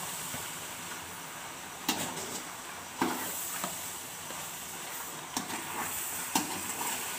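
Egg bhurji sizzling in a kadai while a metal spatula stirs it, knocking and scraping against the pan about four times.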